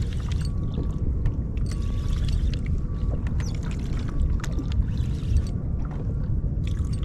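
Water sloshing against a fishing kayak's hull under steady wind noise on the microphone, with many short light clicks and ticks scattered through.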